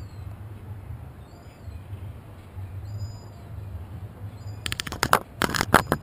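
Sharp knocks and taps on a GoPro's housing, a rapid flurry starting about five seconds in, over a low steady rumble.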